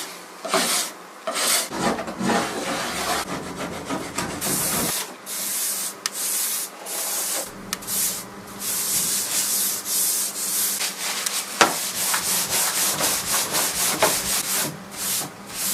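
Hand scraper dragging over wood, lifting a finish softened by paint stripper, in repeated strokes that get shorter and quicker in the second half.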